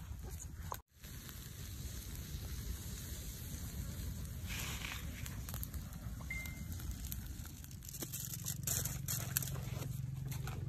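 Small twig-and-branch campfire crackling with scattered pops, over a low steady rumble.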